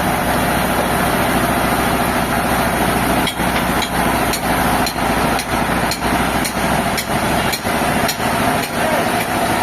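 Sawmill machinery running steadily, with a sharp knock repeating about twice a second from a few seconds in.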